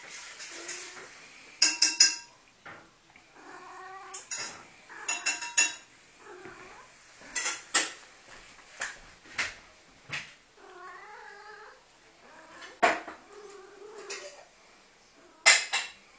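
Cat in heat yowling in three drawn-out, wavering calls, among a run of loud, sharp clatters and knocks that are the loudest sounds.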